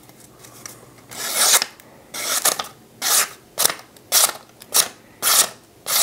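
Freshly sharpened folding knife blade slicing through a sheet of paper in a run of short rasping strokes, about two a second, starting about a second in. It is a paper-cutting test of the new edge.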